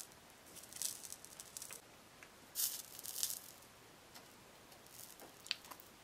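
Soldering a thin wire onto a smoke detector's circuit board by hand: a few short, faint, hissy rattles and light clicks as the iron, wire and board are worked.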